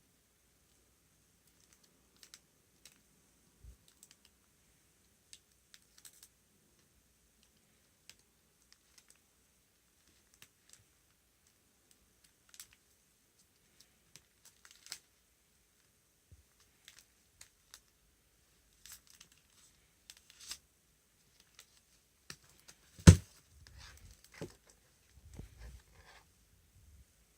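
Handling noise from photo prints being sorted: scattered light clicks and crinkles, with one sharp knock about two-thirds of the way through and a few softer thumps after it.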